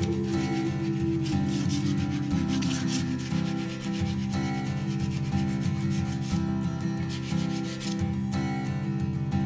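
Chalk pastel scraped back and forth over painted paper in repeated scratchy strokes, a few a second, over steady low background tones.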